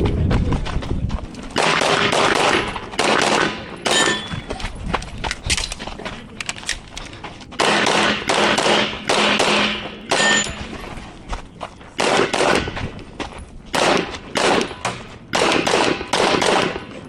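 Glock pistol fired rapidly through a practical-shooting course of fire: dozens of sharp shots in quick pairs and strings, broken by short pauses between target arrays.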